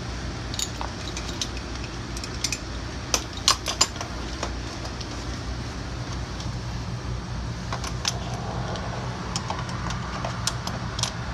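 Buckles and metal strap hardware of a Pedi-Mate child restraint clicking and clinking as its leg straps are fastened to a stretcher, with a cluster of sharper clicks about three to four seconds in. A steady low hum runs underneath.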